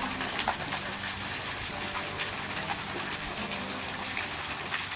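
Steady outdoor background wash with a faint, distant voice coming and going.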